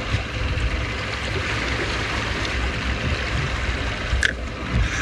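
Steady wind and water noise aboard a small boat at sea, with a low rumble and one sharp click about four seconds in.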